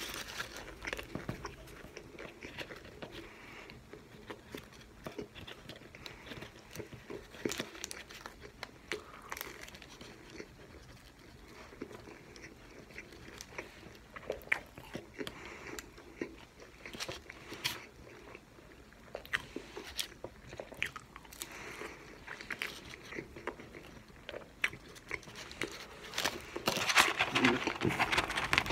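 Close-miked mouth sounds of a person eating McDonald's fast food: biting and chewing with small crunches and clicks throughout, growing louder and denser near the end.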